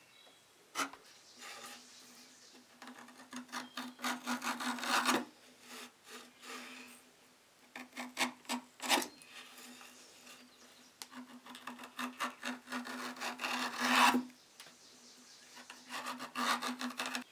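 Small metal skiving tool shaving thin curls off the edge of a piece of leather on a wooden bench: several bursts of quick scraping strokes with short pauses between, the loudest burst ending about 14 seconds in.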